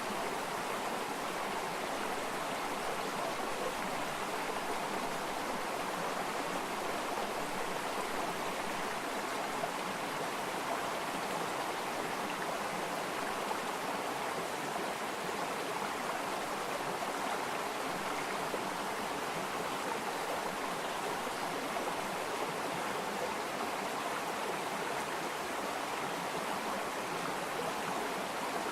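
Running water of a stream flowing over stones, a steady rushing hiss.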